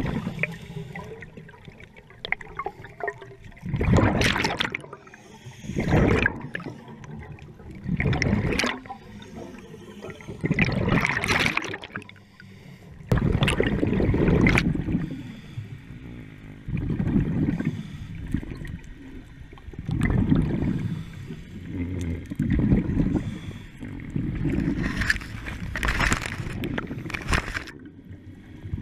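Scuba diver breathing through a regulator underwater: repeated rushes of exhaled bubbles and hissing breaths, about every two to three seconds, over a low watery rumble.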